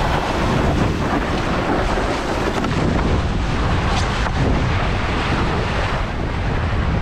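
Strong wind buffeting the action camera's microphone while windsurfing, over water rushing and splashing past the board.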